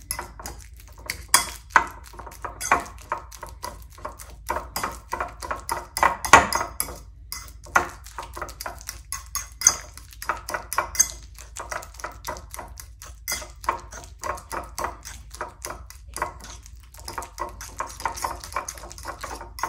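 A metal fork mashing banana in a ceramic bowl: repeated clinks and scrapes of the fork against the bowl, a few a second, with short pauses.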